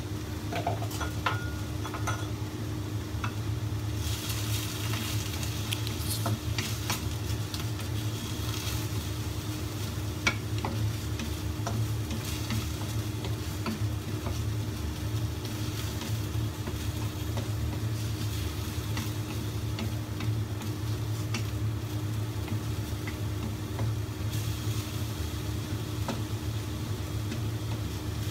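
Napa cabbage and sliced pork sizzling in a hot wok while a wooden spatula stirs and tosses them, with light scrapes and clicks against the pan. The sizzle grows stronger about four seconds in, over a steady low hum.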